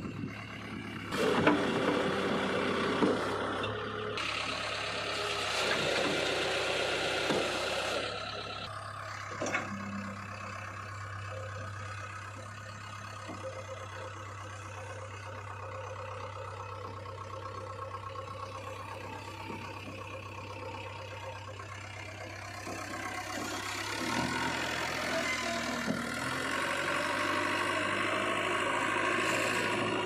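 JCB 3DX backhoe loader's diesel engine running steadily, revving up under load for several seconds about a second in and again in the last several seconds, with a few sharp knocks along the way.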